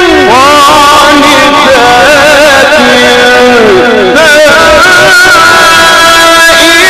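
Male Quran reciter's melodic tajweed chanting: long, held, ornamented vocal notes with wavering pitch. A new phrase begins about four seconds in.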